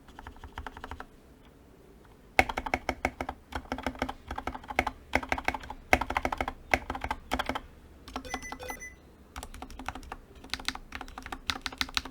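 Typing on a GK61XS mechanical keyboard with lubed, filmed Gateron Milky Yellow linear switches and PBT keycaps: quick runs of keystrokes with a short pause about a second in. About eight seconds in, a brief electronic beep sounds: the sticky keys alert set off by pressing shift.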